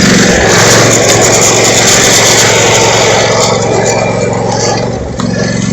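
Riding lawn mower's engine running hard under a loud rushing noise as it tries to pull out of mud. The engine note fades back about half a second in and comes up strongly again near the end.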